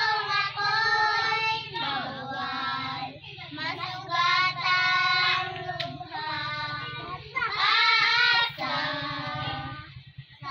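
Children singing a song unaccompanied, in phrases that break off briefly near the end.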